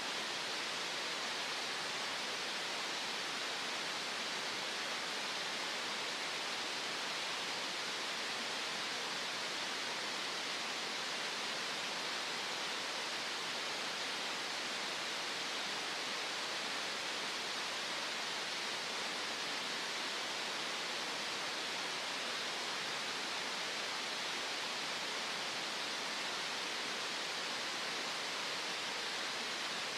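Green noise: an even, unchanging hiss that is fullest in the middle-to-upper range, with little deep bass and a softened top.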